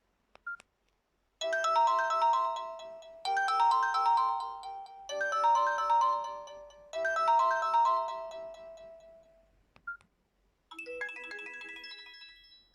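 Samsung Metro 350 (SM-B350E) phone playing its built-in ringtones: a short beep, then a melodic phrase repeated four times, another short beep, and a different ringtone starting near the end.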